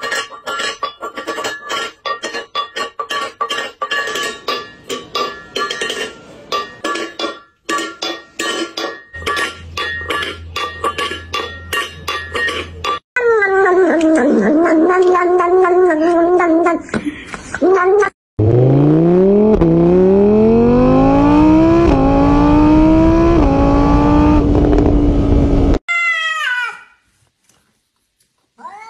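A run of mixed sounds. For the first thirteen seconds there is rapid clicking over steady tones, followed by a wavering pitched cry. The loudest part is an engine-like sound that climbs in pitch and drops back several times, like a car accelerating through gears. A short falling cry comes near the end.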